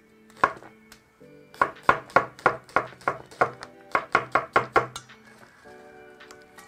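Kitchen knife chopping an onion on a plastic cutting board: a run of sharp knife strikes, about three a second, that stops about five seconds in. Soft background music plays underneath.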